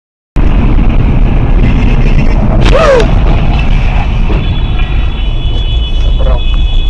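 Loud, steady low road and wind rumble of a car travelling on a highway, picked up by a dashboard camera inside the cabin; it starts abruptly a third of a second in. A brief falling pitched sound comes about three seconds in, and a high steady tone joins about four and a half seconds in.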